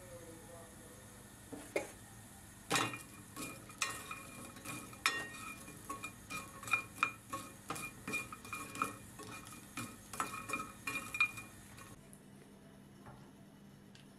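Wooden spatula stirring and turning toasted bread cubes in a nonstick frying pan: a run of quick knocks and scrapes against the pan, about two to three a second, that stops near the end.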